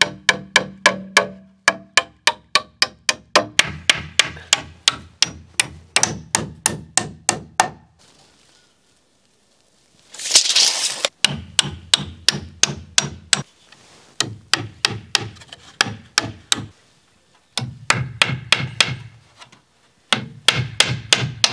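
Claw hammer driving nails into a thin cedar fascia board on a wooden roof frame, struck in quick runs of about three to four blows a second with short pauses between. A short rushing noise comes near the middle, after a brief quiet spell.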